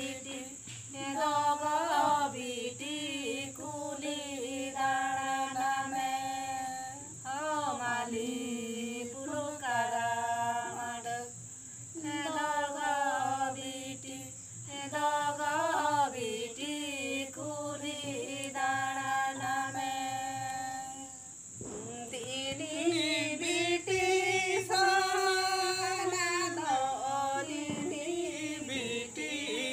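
A group of voices, mostly women's, singing a Santali Sohrai song (Sohrai sereng) unaccompanied and together. The singing comes in long phrases of held, wavering notes, with brief breaths between them.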